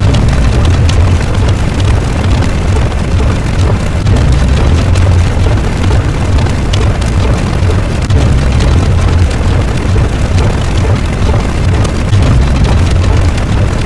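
A loud, continuous rumbling sound effect with a deep low rumble that swells every second or two, under a hiss sprinkled with faint crackles.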